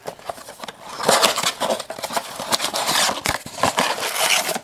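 A cardboard trading-card blaster box being opened by hand, its flaps pulled and folded and the packs handled inside, making an irregular run of scraping, rustling and sharp clicks.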